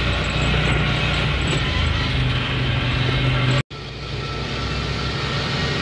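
Off-road buggy engine running steadily under way, with wind and road noise. The sound cuts out abruptly for an instant a little past halfway, then returns quieter and builds up again.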